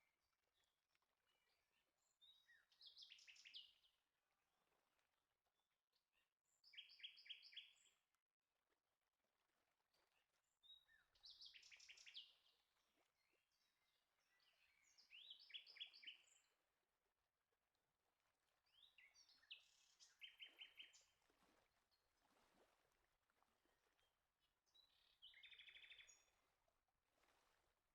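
Faint bird song: a small songbird singing short trilled phrases of rapid repeated notes, about one every four seconds.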